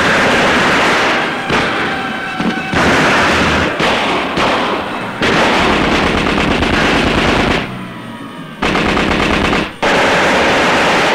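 Long bursts of Thompson submachine-gun fire on an old film soundtrack, rattling almost without pause, with a short lull about two-thirds of the way through.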